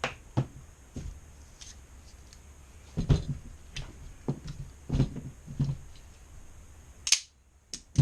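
Scattered light knocks and clicks from small objects being handled on a workbench, with a brief scrape near the end. This is the soldered wire and XT90 connector being picked up and tested for strength.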